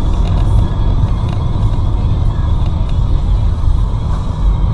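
Steady low rumble of a car's engine and tyres on the road, heard from inside the cabin, with music playing along under it.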